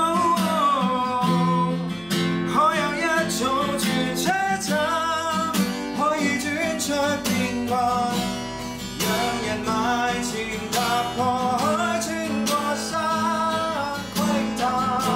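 A man singing a slow melody, accompanying himself on a strummed acoustic guitar.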